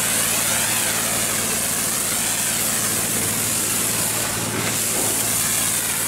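Fire hose jet of water spraying against a masonry wall: a loud, steady hiss, over a steady low engine hum.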